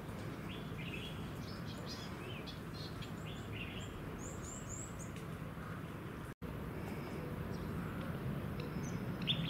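Small birds chirping and calling now and then, short high notes over a steady low background rumble. The sound cuts out for a moment about six seconds in.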